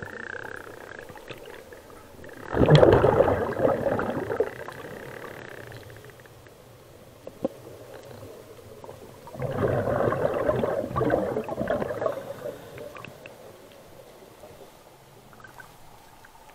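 Scuba regulator exhaust bubbles heard underwater: two exhalations, each a bubbling rush lasting one to two seconds, about seven seconds apart.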